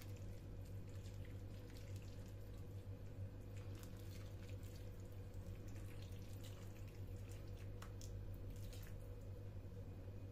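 Thin tomato-paste sauce pouring from a glass jug into a glass baking dish of meatballs and potatoes, a faint trickle and splash of liquid with a few small ticks. A steady low hum runs underneath.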